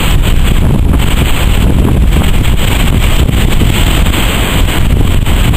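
Strong wind buffeting the microphone, a loud, steady rumble, over heavy surf breaking.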